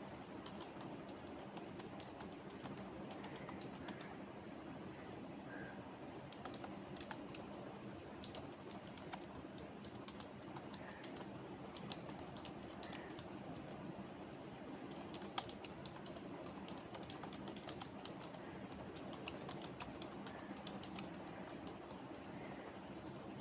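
Computer keyboard typing: irregular keystroke clicks in uneven runs, with one sharper key strike about two-thirds of the way through, over a steady low background hum.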